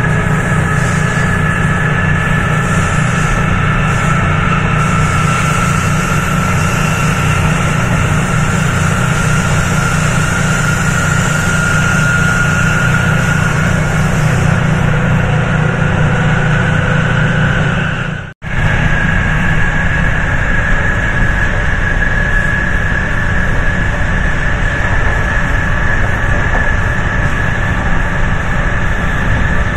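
MARC MP36PH-3C locomotive's EMD 16-645F3B two-stroke diesel prime mover running loud and steady under power, with a deep rumble and a high whine that rises slowly in pitch. The sound cuts out for an instant about eighteen seconds in.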